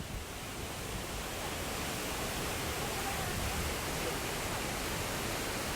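Steady rush of falling water from a waterfall on a mountain river, an even, unbroken noise.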